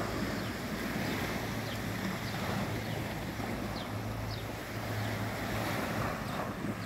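Small waves washing in on the shore of a calm sea, with wind buffeting the microphone.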